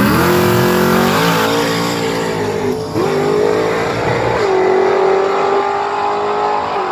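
Drag race cars launching from the line and accelerating hard down the strip at full throttle. The engine note climbs steeply, drops sharply at a gear change about three seconds in, steps down again shortly after, then holds steady as the cars pull away.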